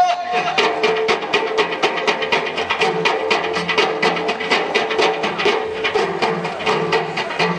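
Ensemble of Amazigh bendir frame drums beaten in unison in a fast, even rhythm of about four to five strokes a second, as Ahidous group drumming. A held sung note from the chorus dies away at the start.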